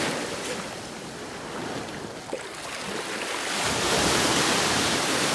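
Shallow sea surf washing in, with a small wave breaking and rushing in about two-thirds of the way through, where it swells loudest.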